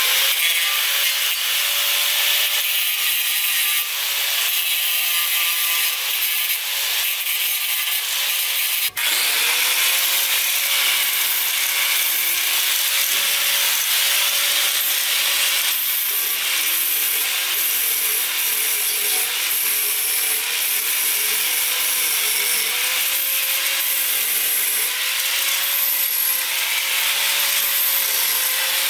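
Electric angle grinder with a flap disc grinding down a TIG weld on an aluminum wheel rim, a steady abrasive grinding with the motor's hum wavering as the disc is pressed on. There is a brief break about nine seconds in.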